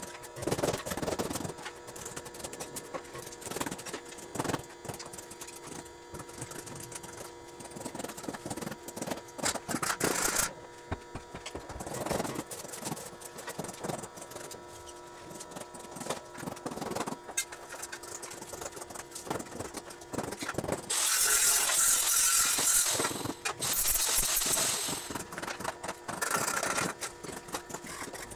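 Metal fabrication work on a tubular steel railing: scattered knocks and clatter of metal being handled, then three hissing bursts of grinding or arc-welding noise in the last third, the first about two seconds long, over a steady electrical hum.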